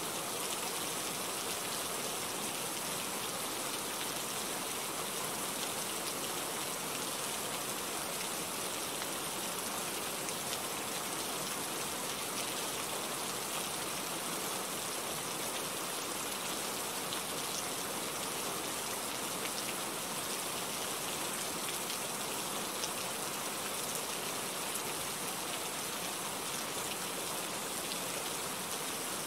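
Steady rain falling, an even, unbroken hiss with no single drops or other sounds standing out.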